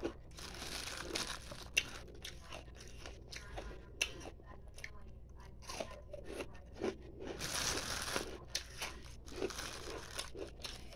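Ice being crunched and chewed close to the microphone: irregular sharp cracks and crunches, with a denser stretch of grinding about seven to eight seconds in.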